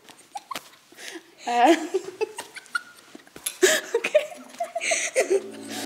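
Two girls giggling and laughing in breathy, high-pitched bursts. Steady background music comes in near the end.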